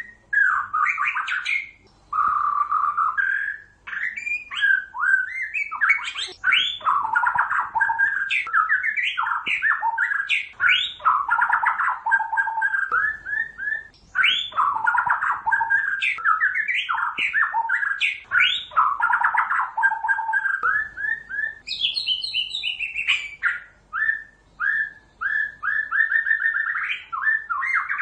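White-rumped shama (murai batu) singing a long, varied song of fast whistled phrases and quick sweeping notes, broken by brief pauses, with a run of higher-pitched phrases about three quarters of the way through.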